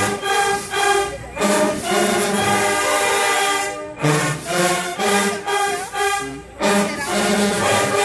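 Marching band brass section with sousaphones playing loud, full chords in short phrases, with brief breaks about every two and a half seconds.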